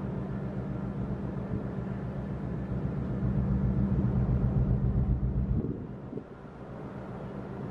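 Low, steady rumble of distant engines mixed with wind on the microphone. It grows louder a few seconds in, then drops off sharply a little past the middle.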